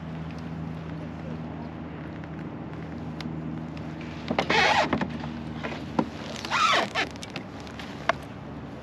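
Steady low hum of a motorboat engine running on the river, with two short, louder sounds a little after halfway and about three-quarters through.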